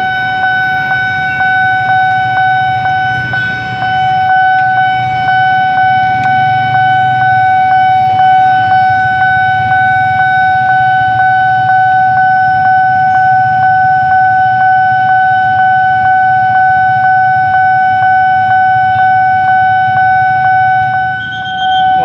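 Railway level-crossing warning alarm sounding continuously: a loud, steady electronic tone beating in a fast, even pulse, signalling that the barrier is closing for an approaching commuter train. Idling road traffic rumbles underneath.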